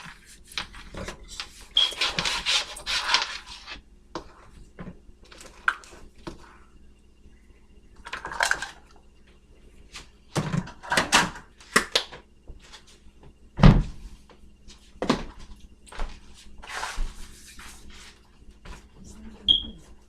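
Kitchen clean-up: scattered knocks and clunks of things being moved and set down, with several short stretches of wiping and rubbing across the counter and chopping board. The loudest is a single thump about two-thirds of the way through.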